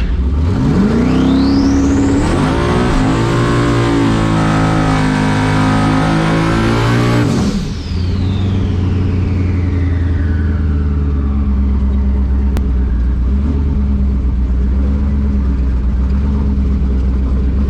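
Race car engine at full throttle on a drag-racing pass: the pitch climbs sharply in the first couple of seconds, holds loud for several more, then cuts off abruptly as the driver lifts. A whine falls away slowly afterward over a steady low engine drone.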